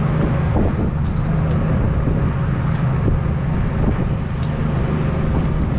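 An engine running steadily with a loud, low drone.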